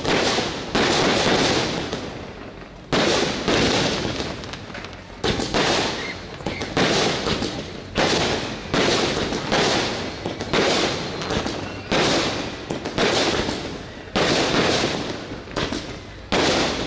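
Ground fireworks going off in an irregular string, roughly one a second: each a sudden burst that trails off into a fading hiss.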